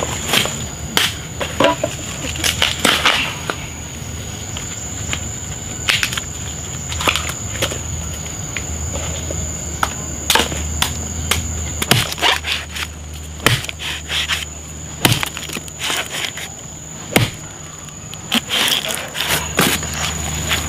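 Machete blade striking and chopping into a bamboo shoot: irregular sharp knocks, some a second or more apart, with rustling as the husk sheaths are cut and pulled away.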